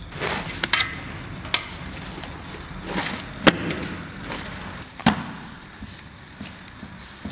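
A handful of sharp, irregular knocks and slaps, the loudest about three and a half seconds in, over a steady low background noise.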